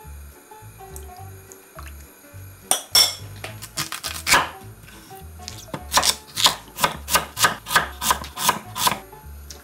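Chef's knife cutting through white radish onto an end-grain wooden cutting board: a few cuts a few seconds in, then a steady run of about three chops a second near the end. Background music with a steady beat plays underneath.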